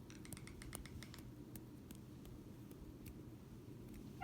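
Faint, irregular small clicks over a low, steady hum, several in quick succession in the first second and fewer after.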